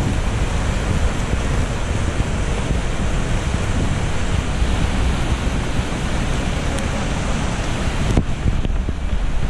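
Steady rush of a fast mountain river running white over rocks, with wind rumbling on the microphone.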